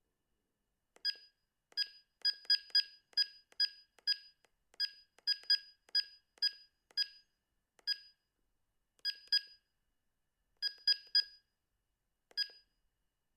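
Sony CM-H777 mobile phone's key beeps: about twenty short beeps, all of the same high pitch, in an irregular run with pauses, as its buttons are pressed.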